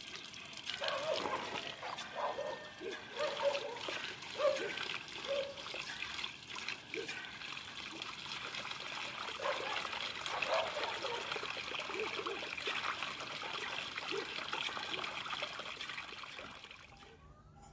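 Tap water running from a hose into a plastic basin while rice is washed by hand, with irregular splashing and sloshing as the hands stir the grains. The running water stops near the end.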